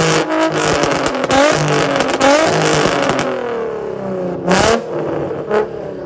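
A car engine revved hard several times in quick succession, its pitch climbing with each blip. About three seconds in it drops back, with two short, sharp bursts of noise near the end.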